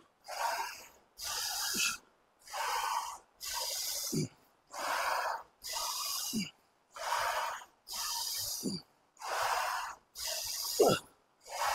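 Hard, rhythmic breathing in and out through the mouth, about one breath a second, several of them ending in a short grunt, the strongest near the end: a man straining through loaded squats on a Smith machine.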